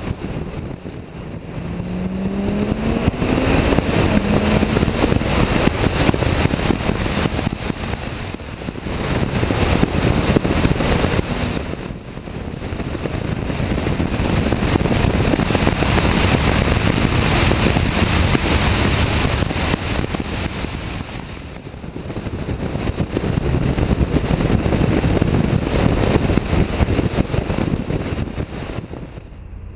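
Tuned Audi TT RS turbocharged five-cylinder engine and exhaust under hard acceleration on the move, the revs climbing and then dropping away several times, with wind rushing over the microphone.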